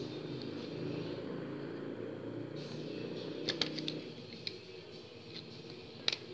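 Light clicks and taps of a smartphone being handled: a few around the middle and a couple near the end, over a steady low background noise.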